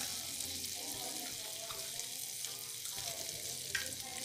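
Butter and a little oil sizzling with a steady fine crackle as they melt and bubble in a kadai, with one sharp tick near the end.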